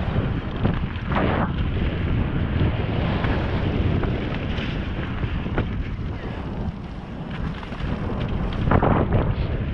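Wind rushing over a helmet-mounted GoPro's microphone as a mountain bike rolls down a muddy dirt trail, with tyre and frame rattle noise. There are two brief louder scrapes, about a second in and near the end.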